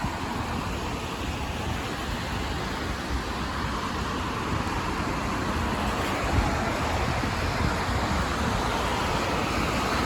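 Road traffic on a wet street: a steady hiss of tyres on wet pavement, growing a little louder in the second half as vehicles pass.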